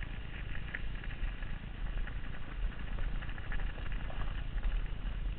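Wind rushing over a helmet camera's microphone and mountain-bike tyres crunching over loose gravel, with a stream of small ticks and rattles from the bike.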